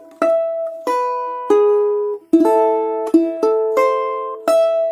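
Balalaika played finger-style, plucking a slow arpeggio of chord notes one string at a time: about nine plucked notes, each ringing on as the next is picked.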